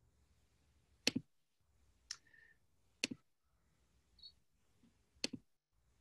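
Four sharp clicks about a second apart, several of them quick double clicks, against faint room tone.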